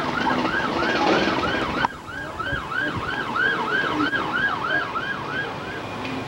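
Emergency vehicle siren in a fast yelp, about three rising-and-falling sweeps a second, becoming quieter about two seconds in.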